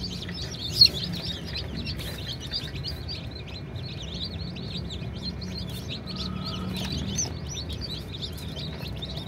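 A crowd of newly hatched Egyptian chicks peeping continuously: many short, high chirps overlapping, with one louder chirp about a second in. A low steady hum runs underneath.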